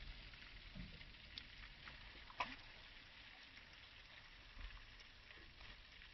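Faint small splashes and lapping of water, with one sharp click about two and a half seconds in.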